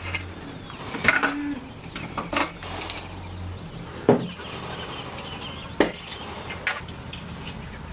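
A handful of sharp knocks and clicks, irregularly spaced, as small plastic battery packs are handled and set down on a tabletop.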